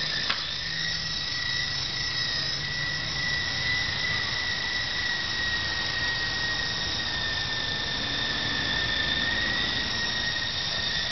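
Blade CX3 coaxial electric RC helicopter running in flight: a steady high electric-motor whine over the whir of the rotors, pitch holding level, with a brief click just after the start.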